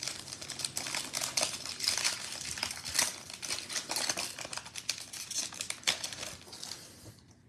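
Foil wrapper of a Panini Prizm football card pack crinkling and tearing as it is pulled open by hand. The crackling stops about seven seconds in.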